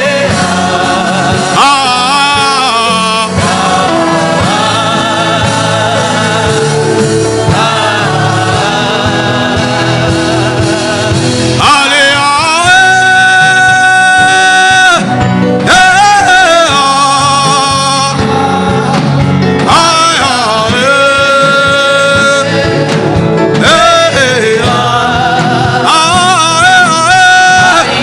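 Gospel worship music: a voice sings long held notes with a wavering pitch over sustained accompaniment.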